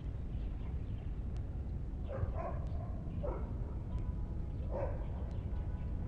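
About four short animal calls, bunched between about two and five seconds in, over a steady low outdoor rumble.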